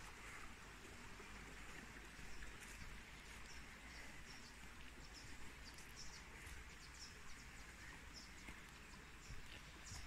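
Faint steady rush of a small stream running over rocks, with a few short, faint bird chirps.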